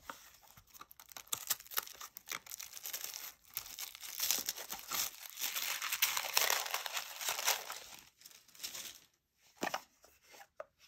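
Printed paper wrapping being torn and peeled off a small card-deck box, crinkling and crackling, loudest through the middle. A couple of light clicks follow near the end as the bare box is handled.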